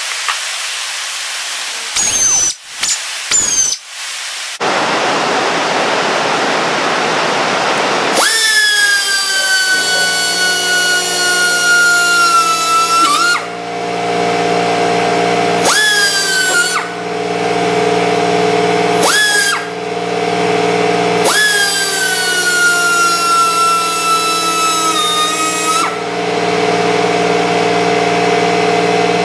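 New air die grinder with a burr in its collet being test-run in the air: a few short hissing bursts, then two long runs of a high whine that sags slowly in pitch over about five seconds each, with two short blips between them. A steady low motor drone starts about ten seconds in and keeps going underneath.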